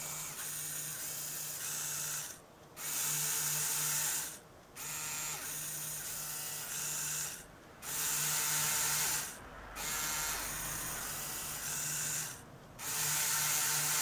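Lego electric motors whirring through their gears in a programmed sequence: six runs of about two seconds each, with a short stop between runs.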